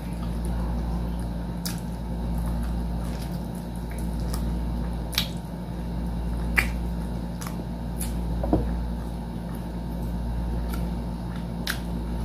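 Close-miked eating of sticky glazed fried chicken: wet chewing with sharp mouth clicks and smacks, about half a dozen spread over the stretch, over a steady low hum.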